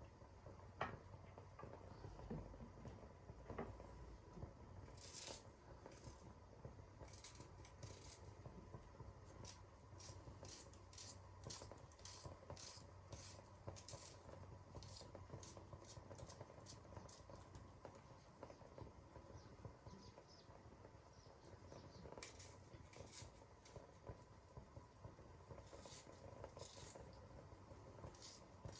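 Near silence broken by runs of faint, quick ticks and scratches over a low steady hum.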